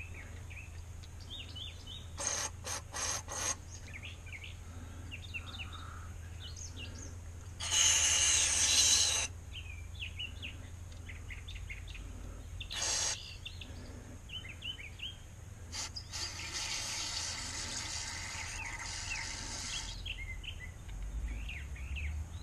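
Aerosol carburetor cleaner sprayed through its red extension straw into carburetor jets to flush out clogged holes, in hissing squirts: a rapid few about two seconds in, a longer, louder one around eight seconds, a brief one near thirteen, and a softer steady spray from about sixteen to twenty seconds. Birds chirp throughout.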